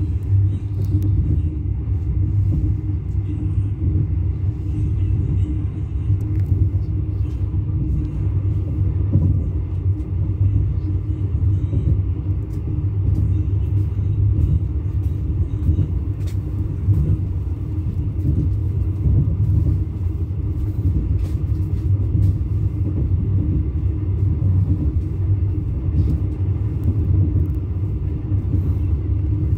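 Steady low rumble of a passenger train running along the track, heard inside the carriage: wheels on the rails and body noise, with a faint steady hum underneath and occasional light clicks.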